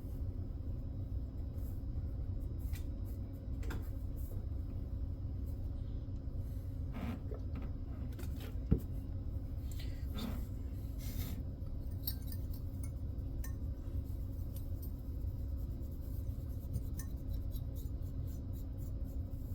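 Small handling noises of scattered light clicks and short rubbing strokes, with one sharper click a little under nine seconds in, over a steady low hum. This fits computer parts being handled and wiped with a rag while old thermal paste is cleaned off.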